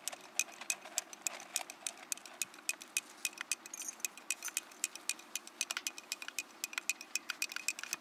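A teaspoon stirring tea in a tulip-shaped Turkish tea glass, clinking against the glass quickly and evenly, about five times a second, each clink with a short glassy ring.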